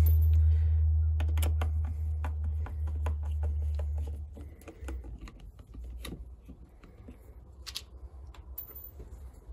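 Light, irregular clicks and taps of a doorbell unit, its screws and wires being handled by hand. A loud low rumble runs under the first four seconds, then drops away, leaving only the clicks.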